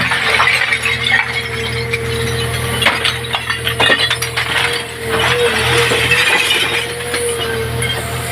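Heavy construction machine's engine running steadily with a faintly wavering whine, overlaid by frequent sharp metallic clinks and knocks.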